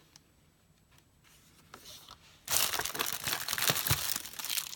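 Near quiet for about two and a half seconds, then loud, continuous crinkling of packaging being handled as a product is taken out of a beauty box.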